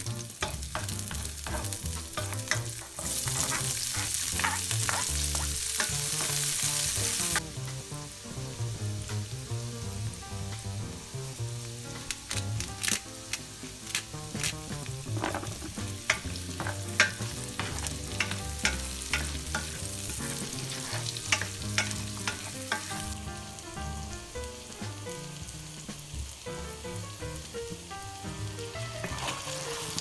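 Garlic, onion, carrot and potato frying in hot oil in a pan, a steady sizzle with a much louder stretch of sizzling a few seconds in. A spatula clicks and scrapes against the pan as the vegetables are stirred, with the taps coming thick in the middle.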